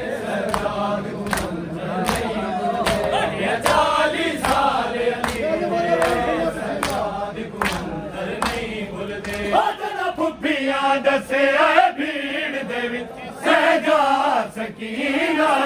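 A group of men chanting a noha (Shia lament) in chorus, with the sharp, regular slaps of chest-beating matam about every 0.7 s; the beating thins out about two-thirds of the way in while the chanting carries on.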